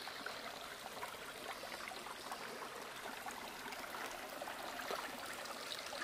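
Shallow, rocky mountain creek trickling and burbling steadily over stones, a continuous water noise flecked with small splashes.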